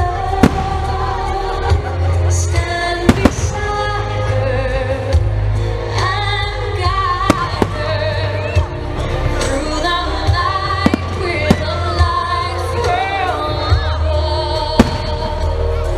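Fireworks shells bursting overhead, several sharp bangs a second or a few seconds apart, over loud music with a singing voice.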